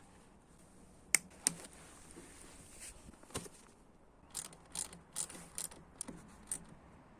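Scattered sharp clicks and taps from handling and fitting small wiring-connector parts: two sharp clicks about a second in, then a run of lighter clicks from about four seconds to six and a half.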